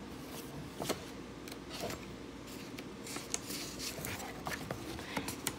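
Quiet room tone with a few faint, scattered clicks and ticks.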